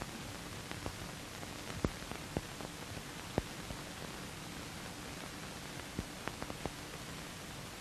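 Steady hiss with scattered clicks and pops, several bunched together about six seconds in: the surface noise of an old black-and-white film's soundtrack between lines of narration.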